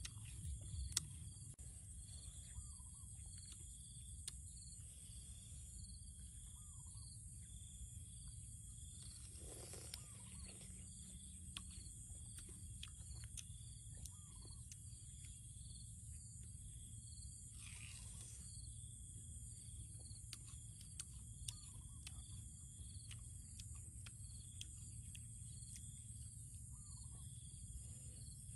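Faint steady chorus of insects, a high continuous trill with a softer chirp pulsing under it, over a low wind rumble. Scattered soft clicks of a spoon against a small bowl and of eating crunchy sour fruit, with two brief louder noises about ten seconds in and again near eighteen seconds.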